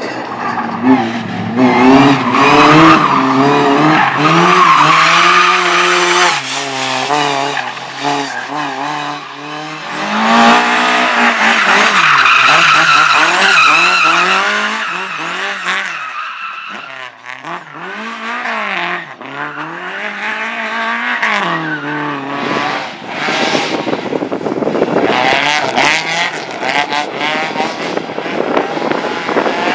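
Race car driven hard through a slalom course. The engine revs up and falls back again and again as the driver accelerates and brakes between gates, with tyres squealing through the turns.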